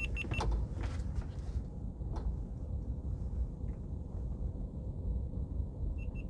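Three quick, high electronic beeps, then a steady low rumble with a few faint clicks, and three more identical beeps near the end.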